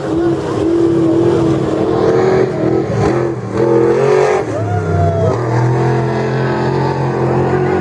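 Off-road race truck engines running loud and rough, with one engine revving up and back down about halfway through.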